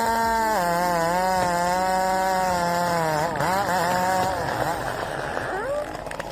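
Chainsaw engine running at high revs, its pitch dipping and recovering as the saw bogs in the cut. It fades into a rougher, noisier sound after about four seconds.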